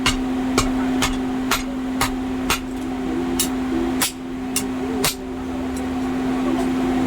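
Hammer blows on metal, about two ringing strikes a second, stopping about five seconds in, over a steady low machine hum.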